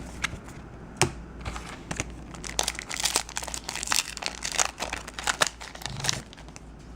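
Foil trading-card booster pack wrapper crinkling and being torn open, with a dense run of crackles through the middle.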